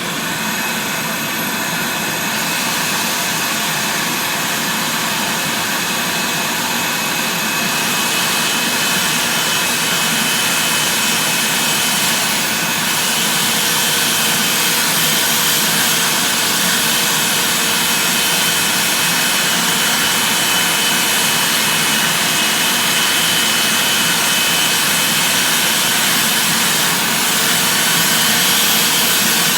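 Vacuum cleaner running continuously with a loud, steady whine. From about 13 seconds in, a second motor tone joins and wavers slightly in pitch.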